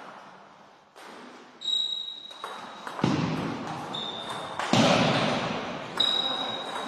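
Table tennis rally: the plastic ball knocking off rubber paddles and the table, several sharp hits each followed by an echoing decay in a large gym hall.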